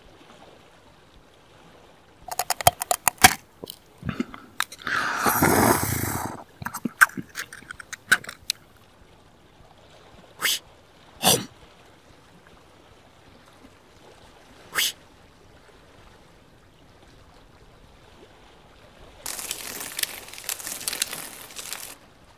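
A string of short crunching and clicking sound effects with a brief louder rustle among them, then about three seconds of water splashing near the end as a fish breaks the surface.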